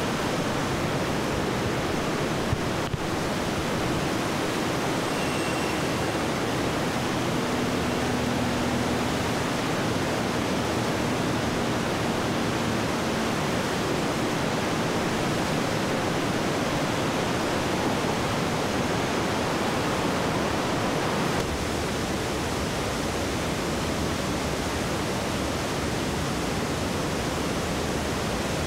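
Flood-swollen river rushing through rapids: a steady, dense rush of turbulent water with no let-up.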